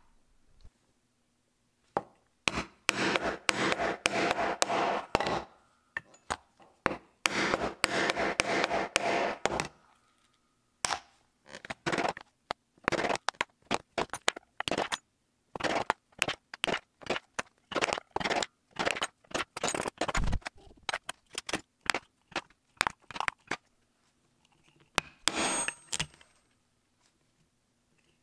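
Leatherworking hand tools on leather over a cutting mat: two spells of fast scraping strokes, then a run of separate sharp taps and knocks, about one or two a second.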